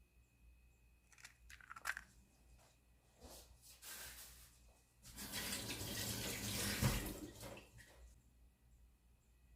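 Kitchen tap running into a sink for about three seconds, with a shorter run of water just before it, after a few small clicks and knocks of handling.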